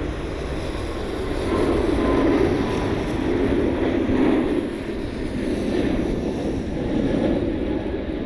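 Boeing 777 twin-engine jet climbing out at takeoff thrust, a steady rushing jet noise that swells and eases slightly.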